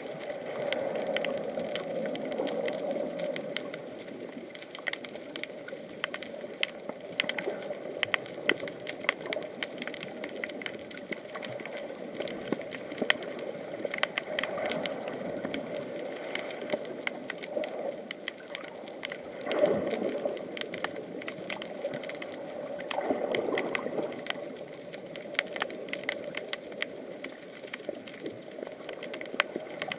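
Underwater sound through an action camera's waterproof housing: a dense crackle of fine clicks over a muffled wash of water, with louder surges about twenty and twenty-three seconds in.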